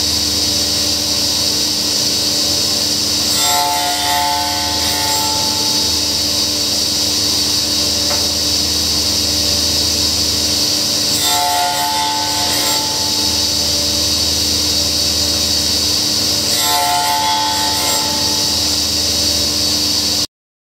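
Hammer K3 Winner sliding table saw running steadily with its blade spinning, its tone changing three times for a second or two as the blade cuts shallow grooves across a wooden block. The sound cuts off suddenly near the end.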